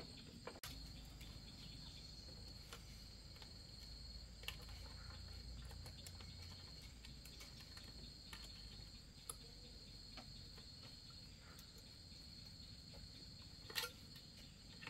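Insects chirring in a high, steady, unbroken band, with a few faint scattered clicks and one sharper click near the end.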